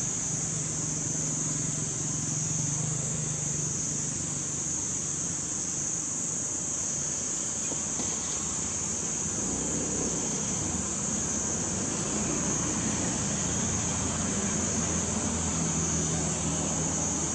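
Outdoor ambience: a steady, high-pitched insect drone over a low rumble of vehicle noise.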